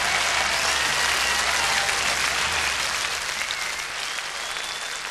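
Large concert crowd applauding and cheering as a song ends, with a few whistles, dying down slightly toward the end.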